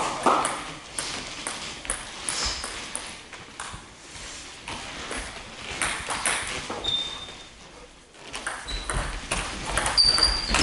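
Table tennis balls clicking off rackets and tables in quick strokes, quieter for a moment in the middle, then a denser, louder run of hits near the end.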